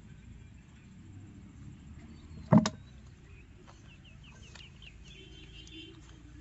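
Faint bird chirps and short clucking calls over a low outdoor hum, with a single sharp knock about two and a half seconds in.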